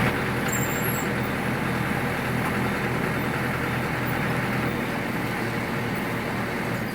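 Caterpillar motor grader's diesel engine running steadily under work, a continuous heavy machine noise.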